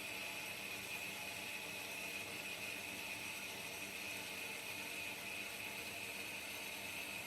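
Pilous semi-automatic metal-cutting bandsaw running steadily, its blade cutting through 5-inch solid steel round bar. A steady high-pitched whine sits over the machine's even hum and hiss, with no change in pace.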